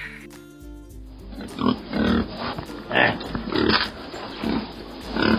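A farm animal grunting in a series of short, rough calls, about one a second. Before them, a few held music notes sound in the first second.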